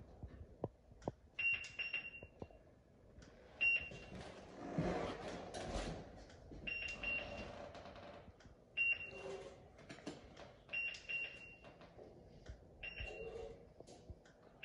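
Prodim Proliner digital templating machine beeping as it records measuring points taken with its wire-and-probe: short high beeps in clusters of one to three, about every two seconds, with soft clicks and a brief rustle between them.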